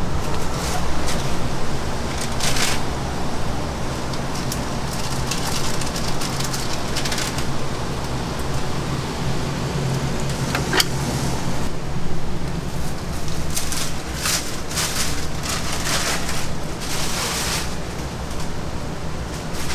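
Hot oil in a deep fryer sizzling and crackling as a coated hot dog on a stick is lowered in, in hissing spells over a steady low hum, with a sharp click a little past the middle.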